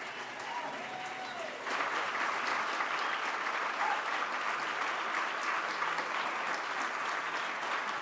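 Audience applauding after a piano performance, the clapping growing louder about two seconds in and then holding steady.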